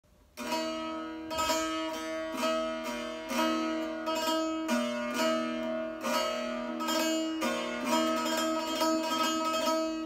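Şeştar, a six-stringed Turkish long-necked lute, plucked in a solo improvisation, each stroke ringing on into the next. The playing starts about half a second in.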